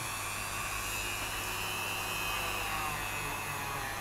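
Dremel rotary tool running on its slowest speed setting with a felt buffing wheel pressed against a clear plastic toy canopy, buffing out scratches: a steady high motor whine that sags a little in pitch in the second half as the wheel is loaded against the plastic.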